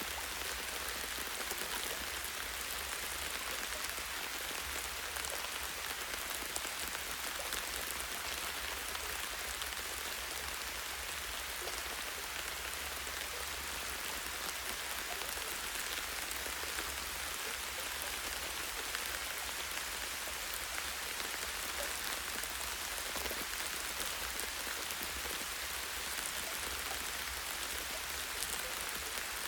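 Light rain pattering steadily on tree leaves and branches, with a steady low rumble underneath.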